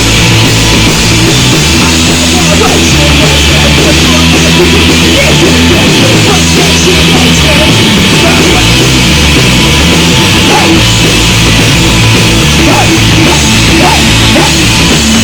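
A rock band playing loud, distorted live music, with heavy guitar and bass notes held and changing every second or so.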